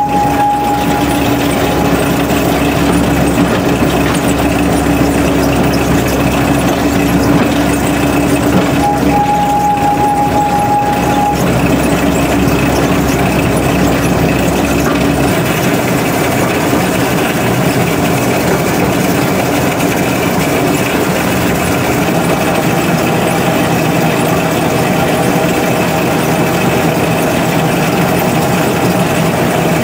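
Engine of a Billard T75 narrow-gauge locotracteur running steadily, heard from inside its cab as it moves along the track; about halfway through the deepest part of the rumble drops away and the engine's note changes.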